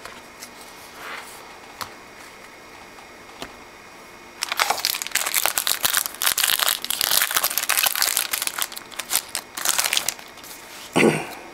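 A trading card pack's foil wrapper crinkling and crackling as it is handled and torn open, starting about four and a half seconds in and lasting around five seconds, with a short louder burst just before the end.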